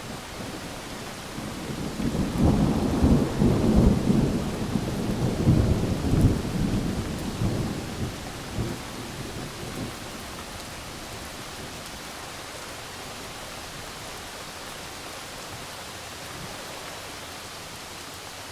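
Steady rainfall with a roll of thunder: a deep rumble swells about a second and a half in, peaks over the next few seconds with crackling surges, and dies away by about ten seconds, leaving the rain alone.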